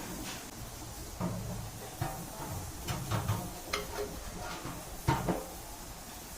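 A run of light knocks and clinks, about six at irregular intervals with the loudest about five seconds in, as compressor parts and tools are handled on a workbench, over a steady low background noise.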